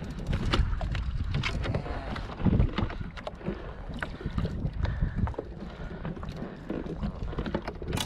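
Scattered clicks, knocks and rustles of a landing net and fishing pliers being handled as a lingcod is worked free of the mesh, over a low rumble of wind on the microphone.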